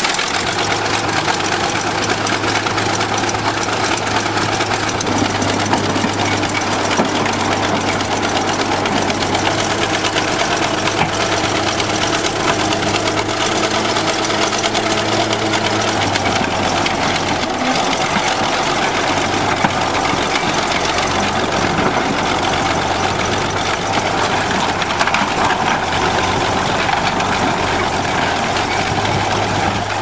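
Bulldozer's diesel engine running steadily with a deep, even drone. A second, higher steady hum joins about five seconds in and drops out a little past halfway.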